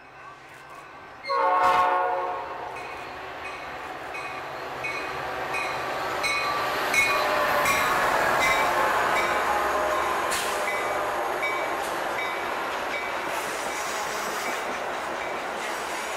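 A locomotive horn sounds one short chord-like blast about a second in, then a train passes with wheels rumbling and clacking over the rails, the noise building toward the middle. A grade-crossing bell rings steadily throughout.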